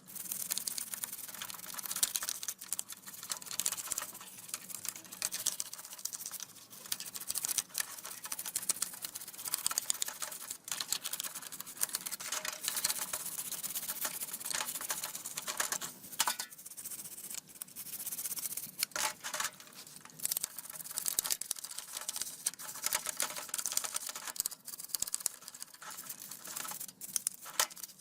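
Rapid, scratchy scraping and scrubbing strokes on a small rusty metal model car part, with short pauses.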